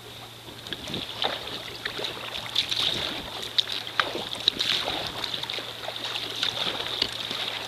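Sea kayak being paddled: the paddle blades dipping and splashing, with water trickling and dripping off them.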